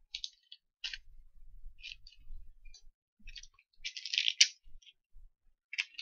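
Small clicks, rattles and rustles of a container of electronic parts being handled to get transistors out. They come in short, irregular bursts, with the busiest and loudest stretch about four seconds in.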